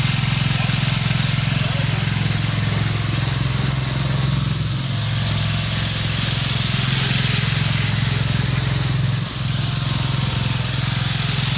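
Briggs & Stratton 17.5 HP engine of a Craftsman LT2000 lawn tractor running steadily just after a test start, as the tractor drives off. There are two brief dips in level, about five and nine seconds in.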